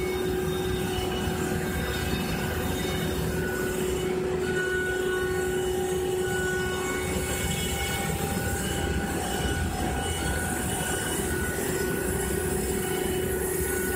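CNC router spindle running steadily while surfacing its spoilboard table, the cutter skimming the board with dust extraction running. It makes a steady machine noise with a constant hum-like tone and higher tones that come and go.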